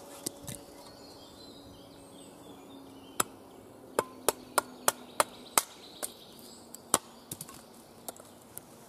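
Cold Steel Special Forces shovel chopping into wood on a stump to split it: a string of about a dozen sharp strikes starting about three seconds in, coming quickly, about three a second, at the busiest.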